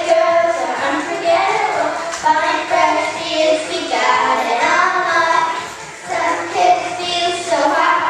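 Three young girls singing a song together into handheld microphones.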